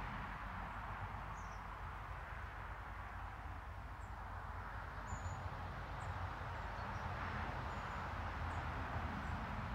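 Outdoor ambience: a steady even hiss with a low rumble beneath it. A few faint, short high chirps are scattered through it, roughly one a second.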